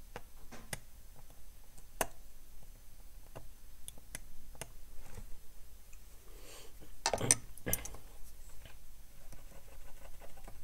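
Small sharp clicks and scrapes of a knife blade cutting a copper trace on an engine control unit's circuit board, with a louder cluster of clicks about seven seconds in.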